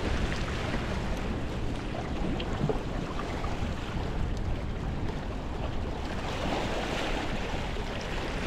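Steady wind buffeting the microphone in a strong, gusty wind, with waves washing in underneath.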